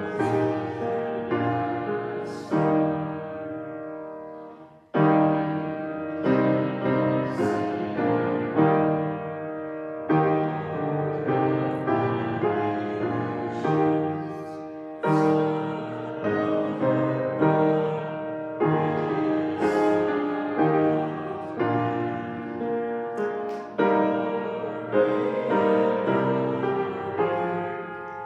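Piano playing slow, sustained chords, each struck and left to fade, with a short break about five seconds in.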